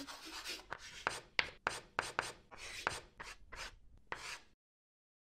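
Chalk writing on a blackboard: a quick run of scratchy strokes punctuated by sharp taps, stopping about four and a half seconds in.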